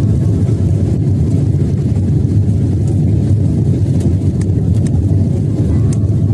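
Airliner's engines and airflow after take-off, a steady low rumble.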